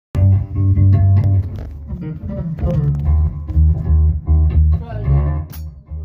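Band jamming: electric bass guitar playing a rhythmic line of low notes with guitar, over drums and cymbal hits.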